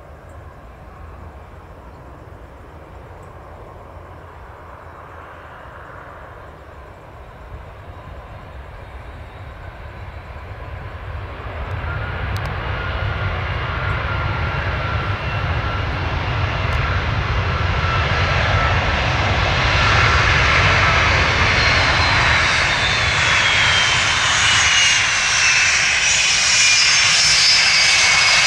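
Jet airliner's engines growing steadily louder as it approaches, with a high whine that drops in pitch near the end as it passes.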